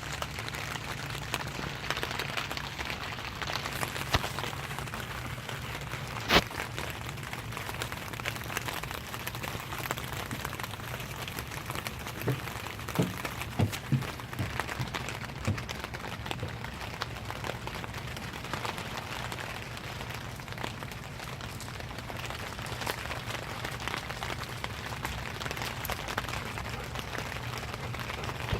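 Steady rain pattering, with a low steady hum beneath it. Scattered sharp clicks sound over it, the loudest about six seconds in and a quick run of them between about twelve and fifteen seconds.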